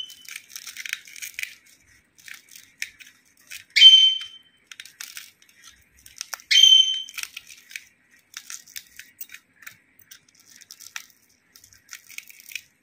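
Fingers mashing fried prawns, green chillies and garlic against a steel plate: scattered wet crackling and squishing, with three short, loud, high squeaks, one near the start, one about four seconds in and one about six and a half seconds in.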